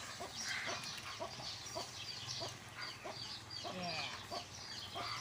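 Chickens clucking with many short, high chirps scattered throughout.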